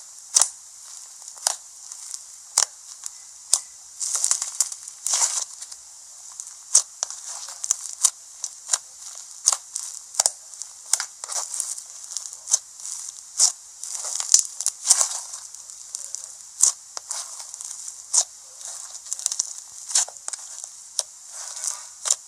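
Slime being squeezed, stretched and poked by hand, giving irregular sharp pops and crackles, a few each second, over a faint hiss.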